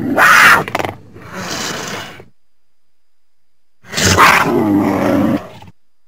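Cougar vocalising: a loud harsh call at the start and a softer one just after, then, after a pause of about a second and a half, a longer call of about a second and a half whose pitch wavers.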